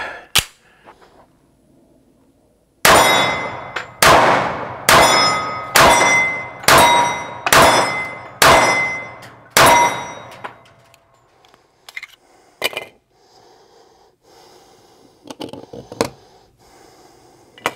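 A 1911-pattern Springfield Armory Champion Operator .45 ACP pistol fired about eight times at a steady pace of roughly one shot a second, each shot with a ringing tail. A few lighter clicks and knocks follow.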